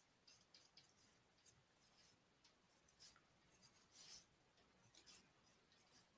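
Near silence with faint, sparse scratches of writing strokes, the clearest about four seconds in.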